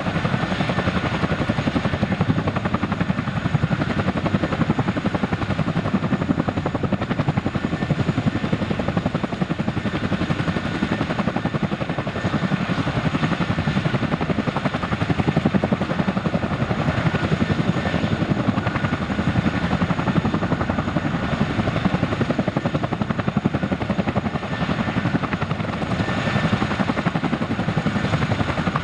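Boeing CH-147F Chinook twin-engine, tandem-rotor helicopter running at close range: the steady, rapid beat of its two rotors over a thin, high turbine whine.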